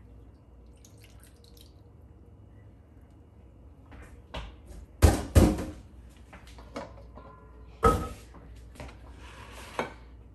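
A clay mortar being rinsed at a kitchen sink: water dripping and splashing, with a few sharp knocks and clatter as it and other dishes are handled. The loudest knocks come about five and eight seconds in.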